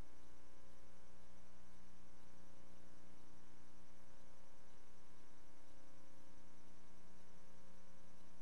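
Steady electrical hum with a constant hiss and nothing else: the empty soundtrack of a silent archival film transfer.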